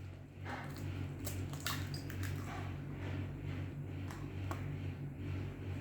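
A raw egg being emptied into a glass of water: faint scattered clicks of eggshell and soft squishing as the egg slips out.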